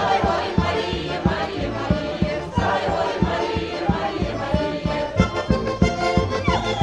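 Lively folk dance music led by an accordion, with voices singing along and a quick steady beat.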